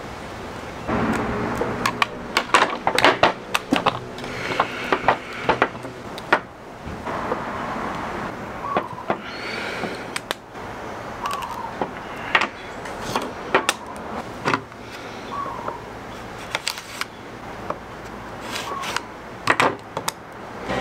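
Close handling sounds of hands tying rubber slingshot bands and a pouch: irregular sharp clicks and taps with rustling between.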